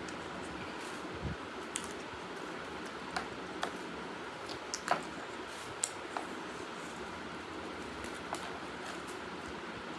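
People eating without talking: about eight sharp, scattered clicks and crunches of chewing and of utensils on plates, the loudest about halfway through, over a steady background hiss.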